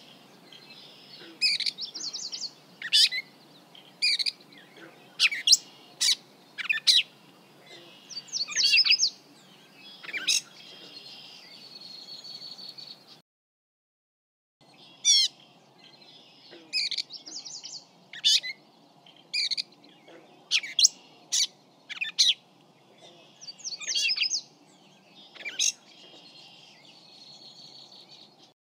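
Gray catbird singing a string of quick, varied chirps and short phrases over a faint hiss, first as recorded through a shotgun microphone. After a short silence about halfway through, the same song passage plays again as recorded through a small parabolic microphone.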